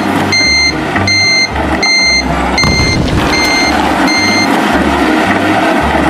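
Vehicle reversing alarm beeping, a steady high beep about every three-quarters of a second, six times, stopping about four and a half seconds in, over a low pulsing rumble.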